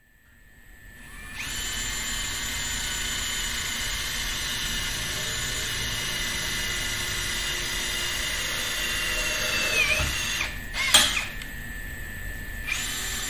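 Cordless drills whirring steadily while setting blind rivets. About ten seconds in the motor pitch sags under load and stops, a sharp snap follows, and a drill runs again briefly near the end.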